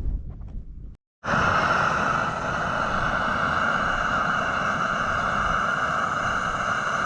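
Low wind rumble on the microphone, then after an abrupt cut about a second in, the steady even hiss of a gas camping stove burning.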